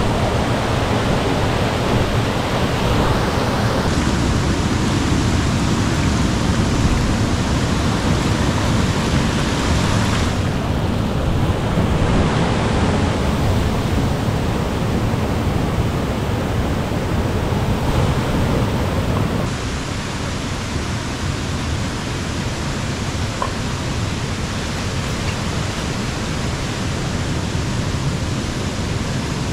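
Steady rush of river water, its sound changing abruptly a few times and a little quieter over the last third.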